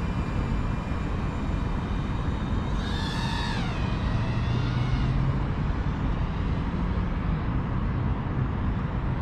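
Steady outdoor rumble of wind and distant traffic, with a brief high whine that falls in pitch about three seconds in.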